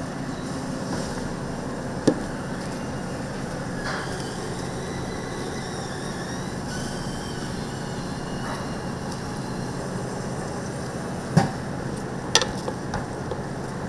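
Steady low hum of a street-food kitchen, with a few sharp knocks of cooking utensils: one about two seconds in and two close together near the end.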